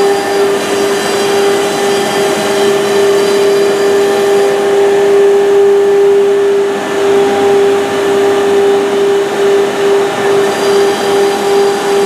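Woodworking machine running at speed: a steady high whine over a loud rushing noise.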